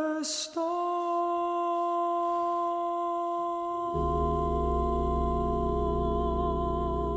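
A cappella vocal group: one male voice holds a single long sung note, and about four seconds in the other voices come in beneath it with a low, steady chord.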